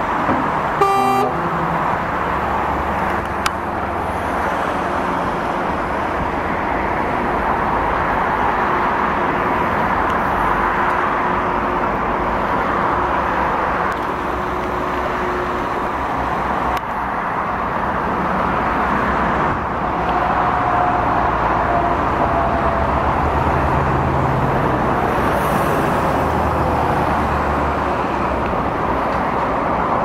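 Heavy truck engines running steadily, with a short horn toot about a second in.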